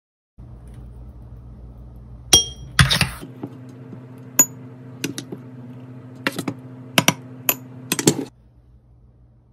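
Metal spoon clinking against a small glass bowl while soaked chia seeds are scooped in: about ten sharp clinks, a few with a brief glassy ring, over a low steady hum.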